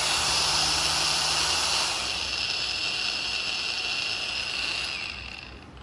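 Cordless power tool motor running free at high speed with a high whine and air hiss. It eases off about two seconds in, then spins down and stops near the end.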